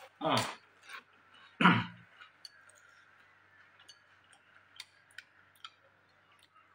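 Chewing crunchy crackers with the mouth, with two louder short mouth sounds in the first two seconds. After that come faint scattered clicks of chopsticks against a noodle bowl as the noodles are stirred and lifted.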